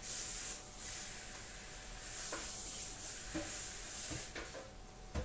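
Wide rice noodles sizzling in a hot pan as they are stirred, the sizzle easing off after about three seconds, with a few light knocks of the utensil against the pan.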